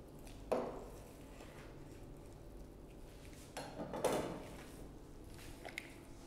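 Butchery handling sounds: raw beef chuck and a knife knocking and shifting on a plastic cutting board, with a single knock about half a second in and a short cluster of knocks and rubbing around four seconds in.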